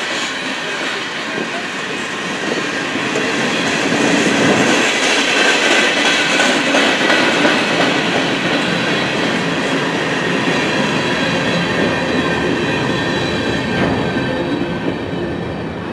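Freight cars rolling past on the rails: a steady rumble of steel wheels with clickety-clack and a steady high wheel squeal.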